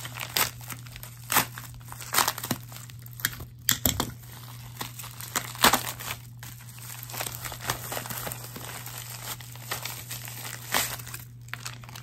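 Plastic packaging crinkling and crackling as it is handled, with irregular sharp crackles, over a steady low hum.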